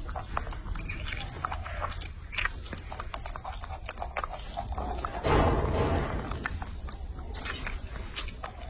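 Baby macaque biting into and chewing a peeled orange: many short wet clicks and smacks of chewing, with one louder, longer noisy burst about five seconds in.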